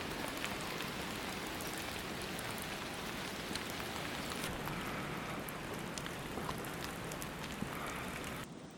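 Steady rain falling, with scattered sharper drops striking close by. It becomes quieter shortly before the end.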